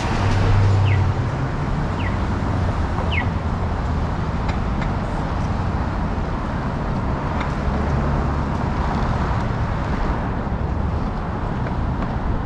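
Downtown street traffic: a steady wash of passing cars and engine noise, with an engine hum near the start and a few short high chirps in the first few seconds.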